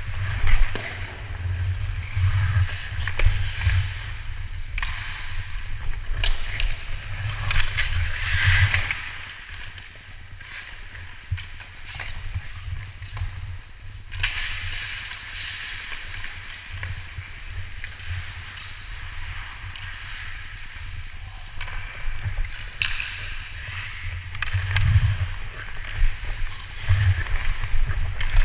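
Ice-hockey skate blades gliding and scraping on rink ice in repeated swells, with occasional sharp clicks, over a steady low rumble.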